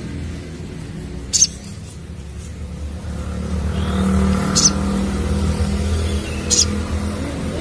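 A motor vehicle running, its low engine hum growing louder through the middle and easing off near the end, with three short, sharp high chirps from a crimson sunbird (sogon) over it.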